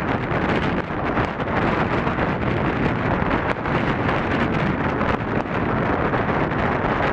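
Strong wind buffeting the microphone: a loud, steady rush of wind noise that wavers slightly in strength.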